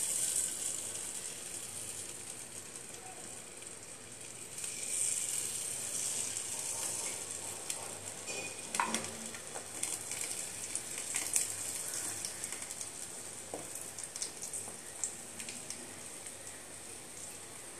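Jalebi batter frying in hot oil in a kadai as it is piped in: a steady high sizzle with scattered crackles and pops.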